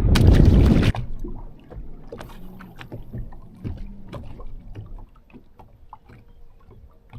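A loud rushing noise for about the first second, then quiet handling sounds aboard a fishing boat: scattered small knocks, clicks and low thumps, with water moving around the hull.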